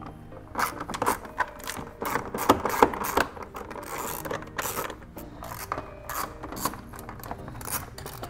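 Hand tools working on the plastic intake parts of a VW engine bay: a ratchet wrench clicking on screws, with irregular knocks, clicks and scrapes of tools and hard plastic, busiest about two to three seconds in.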